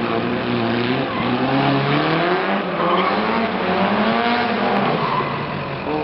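Drift car's engine revving, its pitch rising and falling as the driver works the throttle through a sideways slide, over a steady hiss of spinning, sliding tyres.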